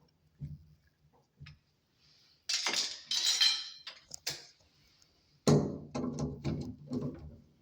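Metal clinking and scraping of a tool turning the shower valve's built-in stop valves off, in short noisy strokes with a ringing edge, ending in a couple of sharp clicks.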